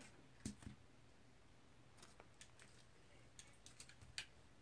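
Near silence broken by a handful of faint, sharp taps and clicks, the clearest about half a second in and near the end: trading cards being set down and squared into sorted stacks on a table.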